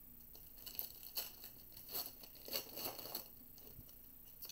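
Foil wrapper of a Bowman baseball card pack being torn open and crinkled, in a handful of short crackly bursts over about two and a half seconds.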